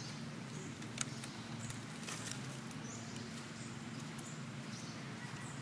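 Outdoor ambience: a steady low hum under a faint hiss. There is one sharp click about a second in and a couple of fainter ticks soon after.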